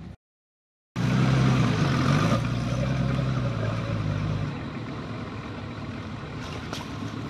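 After a brief dropout, the engine of a Nissan Patrol 4x4 runs under load as it climbs a muddy dirt slope, its pitch shifting a couple of seconds in, then easing off and quieter after about four seconds.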